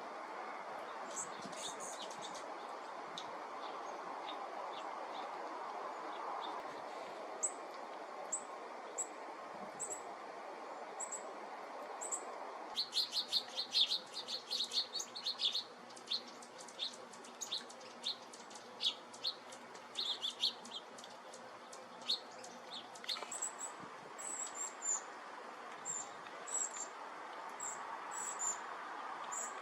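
Small birds chirping with short, high calls, rising to a dense, busy run of chirps in the middle, over a steady background hiss.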